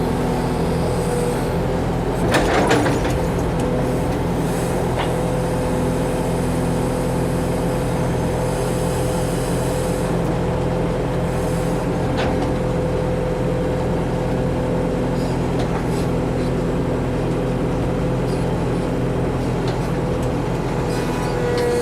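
Backhoe's diesel engine running steadily with a steady whine over it. A brief loud clatter comes about two and a half seconds in, with a few lighter knocks later.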